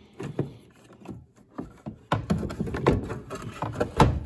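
Scattered knocks and thumps of hands working at the cover of a Buick Regal's heater-core case to free it, with a sharp knock near the end.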